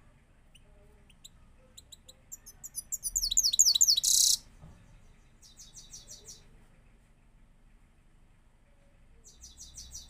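Grey-headed goldfinch singing. Scattered high chirps build into a loud, fast twittering run about three to four seconds in, which ends in a short harsh buzz. Two brief rapid trills follow, around six seconds and near the end.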